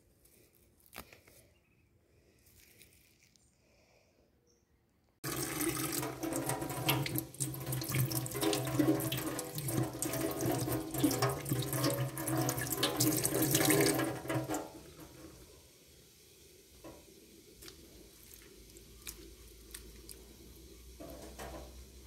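Kitchen tap running onto a bunch of parsley over a stainless steel sink, a steady rush of water splashing through the leaves. It starts abruptly about five seconds in and stops about nine seconds later, leaving only a few faint clicks.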